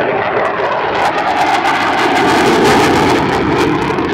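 F-16 fighter jet's engine heard in flight, a loud continuous jet roar. It swells with a crackle from about a second in and is loudest past the middle.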